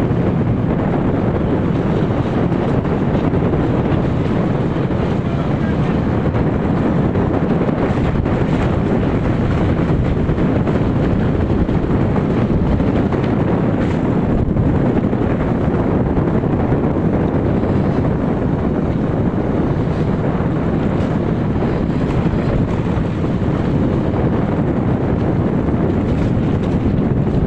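Steady wind buffeting the microphone on a moving motorcycle, a heavy low rumble, with the bike's running and road noise mixed in.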